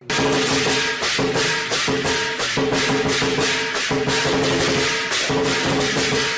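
Upbeat background music with a steady percussive beat, shaker-like rhythm over sustained pitched notes.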